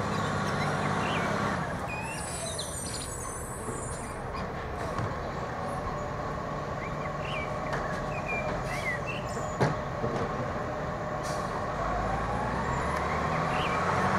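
Iveco side-loader garbage truck's diesel engine running with a steady whine over the low rumble, and a short air hiss about two seconds in. The engine note rises near the end as the truck pulls forward. There is one sharp click about two-thirds of the way through, and small birds chirp.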